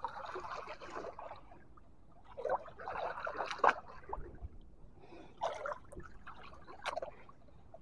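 Pond water splashing and sloshing as dead wooden branches are pushed and shifted in the shallows, in three bouts with a few sharp knocks.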